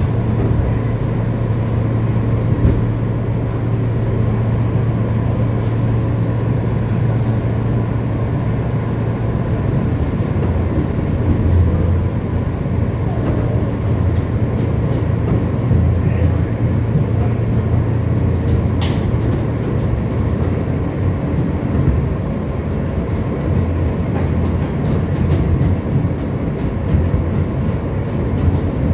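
New York City Subway train running on the L line, heard from inside the car: a steady low hum of the train under way, with a brief click about two-thirds of the way through.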